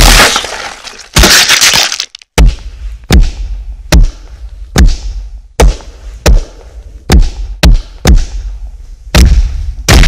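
Film fight sound effects: two loud crashing, shattering bursts in the first two seconds, then a string of about ten sharp hits with a deep thud in each, a little faster than one a second.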